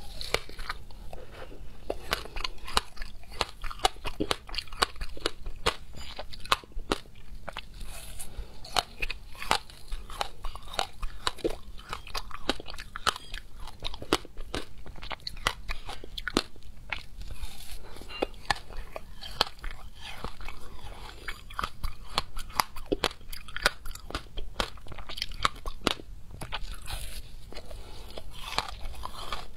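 Close-miked biting and chewing of a frozen slab of passion fruit ice with its seeds: a dense run of crisp crunches.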